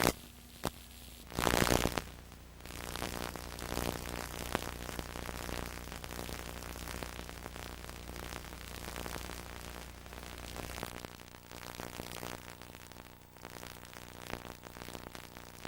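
Static and hiss from VHS tape playback, with a couple of clicks and a short loud burst of noise near the start. A low hum underneath stops about eleven seconds in.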